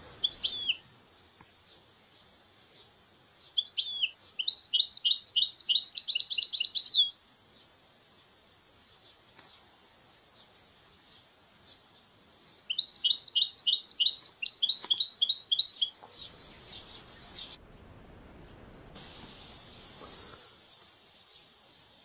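European goldfinch singing: a short call, then two fast twittering phrases of about three seconds each, over a steady high hiss.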